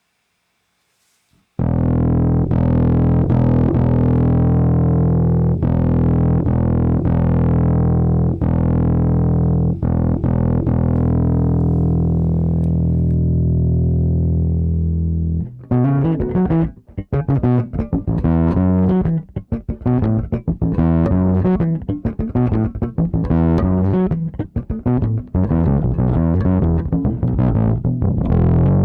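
Electric bass played through a Zoom B6 patch of an RC Boost driving an Ibanez Tube Screamer overdrive. After a short silence, one long overdriven note rings for about fourteen seconds, then a quick run of short plucked notes follows.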